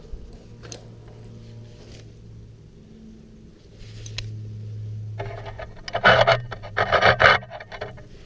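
Hand tools at work: a socket wrench and deep-well socket clicking and clattering in two dense bursts in the last few seconds, after a few single knocks, as the oil pressure switch is worked loose.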